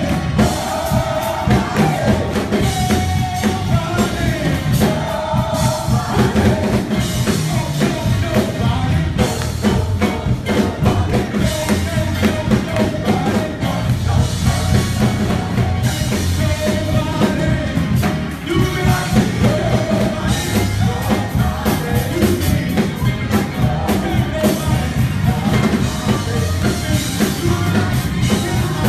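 Loud live church praise music: singing over a band with a drum kit.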